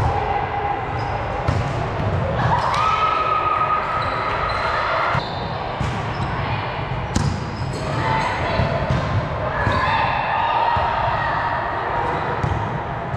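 A volleyball being struck and bouncing, a series of separate sharp thuds spread across the stretch, amid players' voices.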